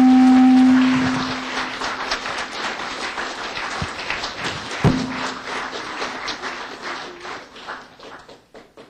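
Audience applauding, the claps thinning and fading out near the end. A steady low tone is sounding at the start and stops about a second in, and there is a single thump about five seconds in.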